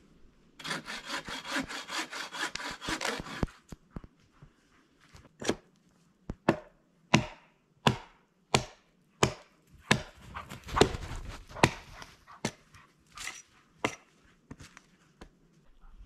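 A hand saw cutting wood in quick, even strokes for about three seconds. Then comes a run of about a dozen louder, sharp strikes on wood, about one every two-thirds of a second.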